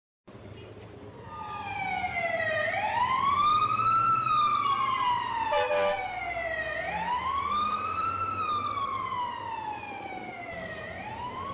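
Emergency vehicle siren wailing in slow rising-and-falling sweeps, a quick rise and a longer fall, about one cycle every four seconds. It grows louder over the first two seconds as if approaching, then eases off a little, with a short extra sound about halfway through.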